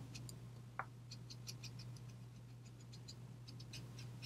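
Brush-tipped marker scratching lightly on cardstock in quick short colouring strokes, several a second, with one brief squeak about a second in, over a steady low electrical hum.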